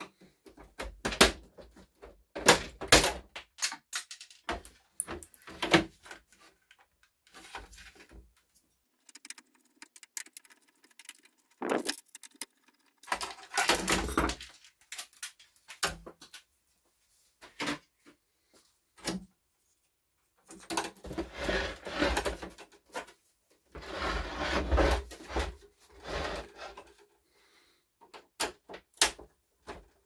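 Plastic dehumidifier housing being taken apart with hands and a screwdriver: a string of sharp clicks and knocks from plastic panels and clips, with two longer stretches of scraping and rattling as panels are worked loose and lifted off.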